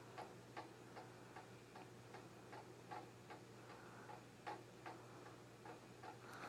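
Faint, regular ticking about two and a half times a second, the pace of a fetal heartbeat (about 150 beats a minute), as picked up by a fetal Doppler on a pregnant belly, over a steady low hum.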